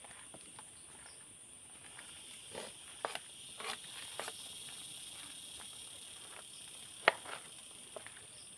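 Insects buzzing steadily in a high, even band, with scattered light clicks and crinkles from hands mixing food on a foil plate; the sharpest click comes about seven seconds in.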